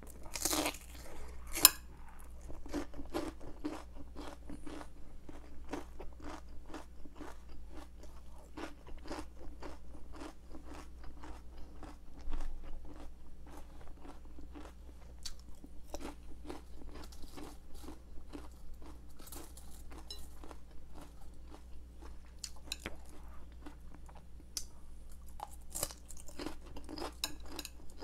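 Close-up crunching and chewing of crisp raw cabbage: a loud bite about a second in, then steady crunching chews, several a second.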